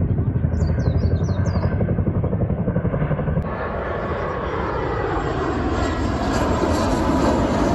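Helicopter rotor beating in rapid, even pulses, with a few short high chirps about a second in. About three and a half seconds in, the sound switches abruptly to a steady rushing aircraft engine noise that slowly swells.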